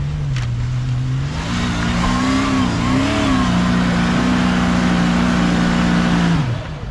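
Vehicle engine revving up about a second in, wavering, then holding high revs under load before dropping back sharply near the end.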